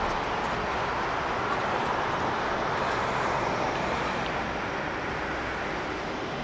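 Jet engines of a Boeing 777-200ER (Rolls-Royce Trent 892s) running as the airliner rolls on the ground: a steady rushing jet noise that fades slightly toward the end.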